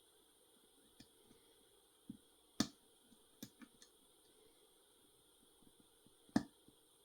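Lock pick and tension wrench working in a Schlage Primus Everest pin-and-sidebar lock cylinder: scattered light metallic clicks and ticks, with two louder clicks about two and a half seconds in and near the end.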